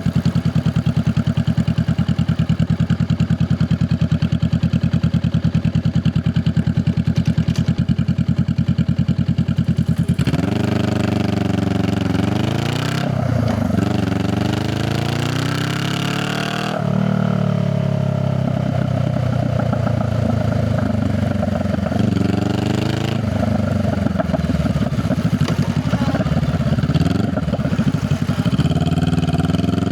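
Honda Rebel 500 parallel-twin engine idling with a steady, even exhaust pulse, then pulling away about a third of the way in, revving up and shifting up through the gears several times, each rise in pitch dropping back at a shift.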